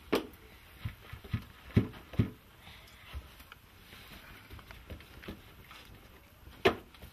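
Hands patting and slapping flatbread dough on a metal tray: a series of irregular soft slaps, the loudest near the start, twice about two seconds in, and once near the end.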